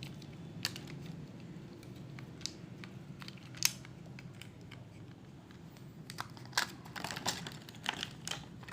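Scattered clicks and light crinkling from handling a plastic action camera and its packaging, the clicks coming thicker in the last couple of seconds, over a steady low hum.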